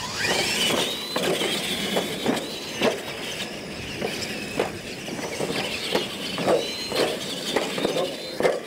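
Electric R/C monster trucks racing on a dirt track: motor and gear whine rising in pitch about a second in as they accelerate, then holding high. Repeated sharp knocks as the trucks hit the ramps and land.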